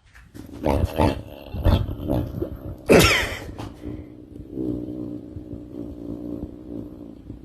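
A dog growling and crying out, with a loud cry rising in pitch about three seconds in, then a lower, steady growl.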